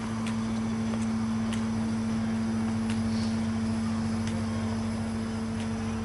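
Canal boat's engine running with a steady hum, plus a few faint ticks.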